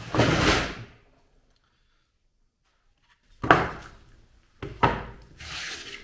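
Motorcycle engine crankcase being handled and turned upside down on a workbench: a heavy scrape at the start, then, after a pause, two knocks against the bench and its wooden support blocks and a sliding scrape.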